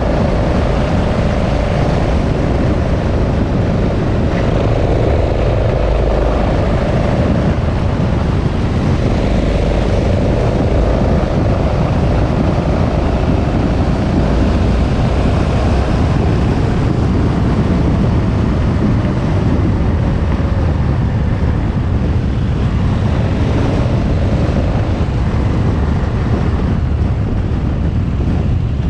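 KTM 1290 Super Adventure's V-twin engine running as the motorcycle travels along the road, heavily mixed with wind rushing over the microphone. The engine note wavers in pitch through the first ten seconds or so, then sinks into the steady wind rush.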